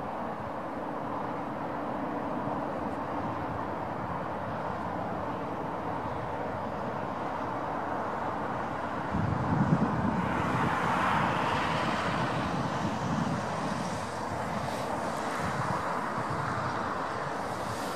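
Airbus A340's four CFM56 turbofan engines running at taxi power, heard from a distance as a steady rumble and whine. About halfway through the rumble swells and a hiss rises for several seconds, then eases back.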